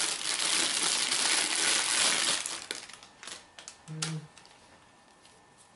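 Plastic bag crinkling loudly as a light socket is unwrapped, stopping about halfway through, followed by a few sharp light clicks as the socket is handled.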